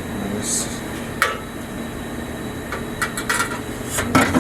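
A few sharp knocks and clattering clicks from tearing out an old boat-cabin bench, a single knock about a second in and a cluster near the end, over a steady low hum from the shop's heater.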